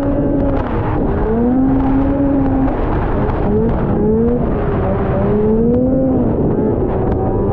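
1979 Ski-Doo Blizzard 7500 snowmobile's two-stroke engine running hard, its pitch rising and falling several times as the throttle is worked, over a steady rumble.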